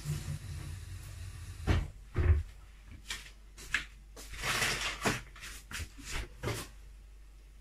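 Kitchen clatter from things being handled off-camera: a series of knocks and clicks, with two louder thumps about two seconds in and a short rustling rush around the middle, like cupboard doors and utensils being moved.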